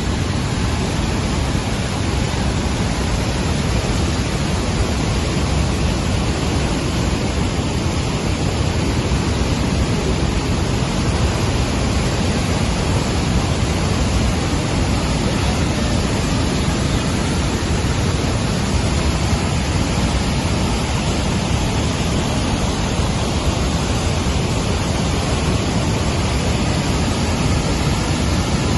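Waterfall in spate, swollen by days of rain: a loud, steady rush of falling water.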